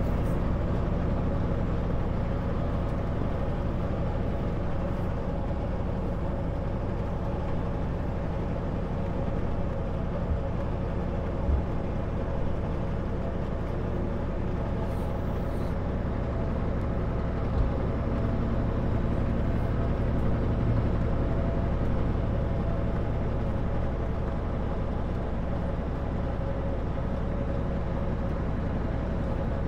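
Kenworth W900L semi truck's diesel engine running steadily at cruise with road noise, heard from inside the cab. Two light knocks come through in the middle stretch.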